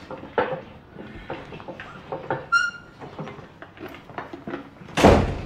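Light clatter and knocks of household objects being handled and tidied away, with a brief high squeak about halfway. A loud thump near the end is the loudest sound.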